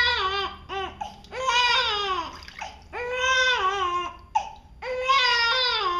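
Newborn baby crying, about four long cries of roughly a second each with short catching breaths between, upset at being bathed.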